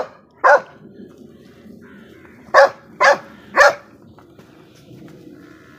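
American pit bull terrier barking at a man approaching it: two barks at the start, then three quick barks about half a second apart beginning about two and a half seconds in.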